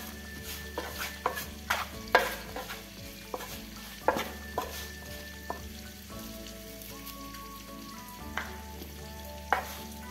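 Wooden spatula scraping and knocking against a granite-coated metal baking pan while stirring roasted eggplant cubes with breadcrumbs. The scrapes come irregularly, thicker in the first half and again near the end, with a quieter stretch in the middle.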